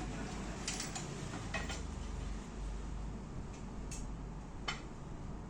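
Scattered sharp clicks and light knocks, about half a dozen, over a low steady hum.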